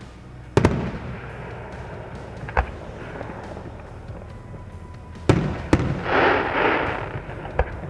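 Aerial fireworks exploding: a sharp bang about half a second in, another at about two and a half seconds, and two more just after five seconds, followed by about a second of dense crackling, then a last smaller bang near the end.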